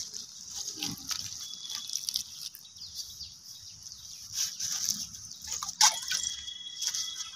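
A hand mixing dry wheat flour in an aluminium bowl as water is poured in for kneading: scattered soft rustles, small drips and splashes, and a sharp click a little before six seconds in.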